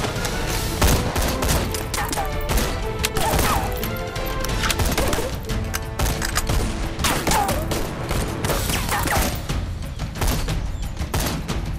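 Film gunfight: rifle and pistol shots fired in quick, irregular succession, many shots overlapping.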